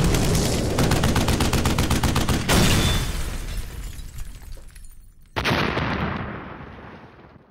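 Battle sound effects: rapid machine-gun fire over the rumble of an explosion, then another blast about two and a half seconds in and a third just after five seconds, each rumbling away and fading out at the end.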